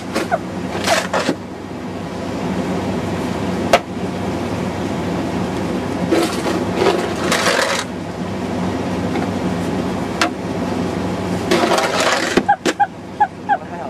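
Snow shovel scraping through snow in three long strokes, spaced several seconds apart, with a couple of sharp clicks between them, over a steady low hum.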